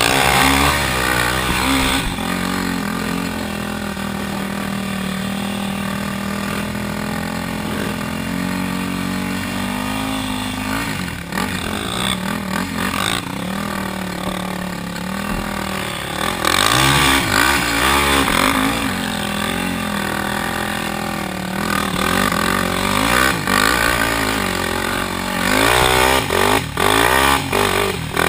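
Single-cylinder four-stroke sport quad engine heard from the rider's seat, holding a steady pitch for several seconds, then revving up and down under throttle, with quick throttle blips and gear changes near the end.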